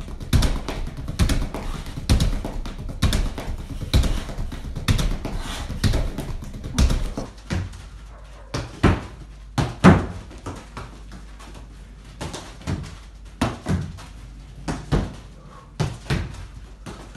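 Rapid footwork on artificial turf, a fast run of steps and thuds, then a football passed against a rebounder board: sharp thumps about once a second, often a kick and its rebound in quick succession.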